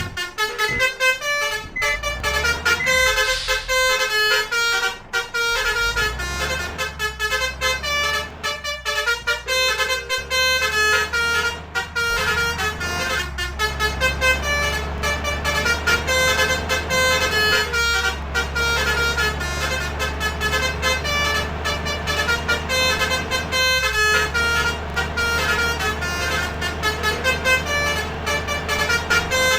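Basuri 'telolet' multi-trumpet vehicle horns playing a rapid melody of short, quickly changing notes. A steady low engine hum runs underneath and grows stronger about halfway through.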